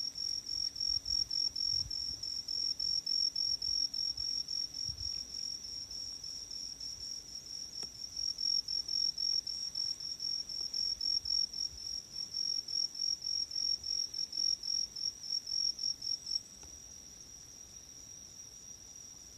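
Insects chirping in a fast, even pulse at one high pitch, several chirps a second. About three-quarters of the way through, the pulsing stops and a quieter, continuous trill carries on.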